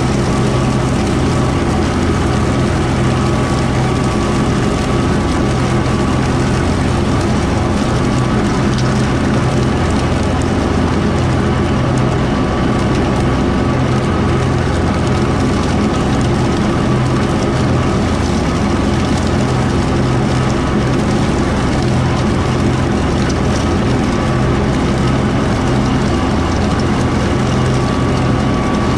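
Kubota M4-071D tractor's diesel engine running steadily while it pulls a Woods BW12 twelve-foot batwing rotary mower along a trail.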